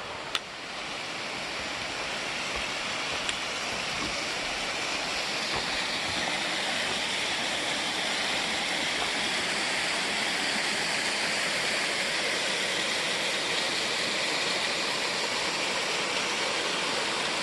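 Small creek waterfall rushing steadily, growing a little louder over the first few seconds. A brief knock sounds just after the start.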